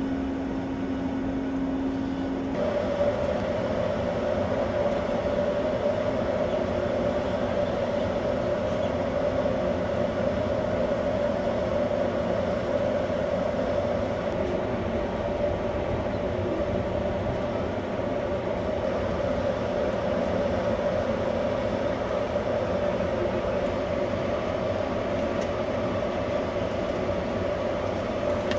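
Steady mechanical drone of a cruise ship's machinery heard from its deck: a rumbling noise with a steady hum, a lower hum giving way to a higher one a couple of seconds in.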